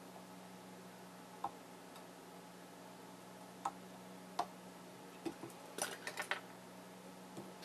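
Faint clicks and ticks of a metal whip-finish tool and thread working at a fly-tying vise while the head of the fly is whip-finished: a few single ticks, then a quick cluster of clicks about six seconds in.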